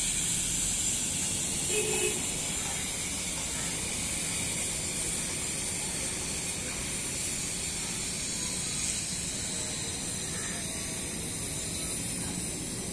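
Steady outdoor background hiss with a low rumble underneath, no distinct events.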